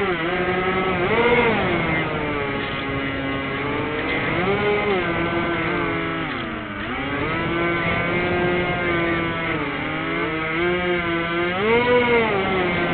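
Twin electric motors and propellers of a Firebird Stratos RC plane, heard from its onboard camera, whining steadily as the throttle is worked. The pitch keeps rising and falling, dropping low for a moment about six to seven seconds in before climbing again.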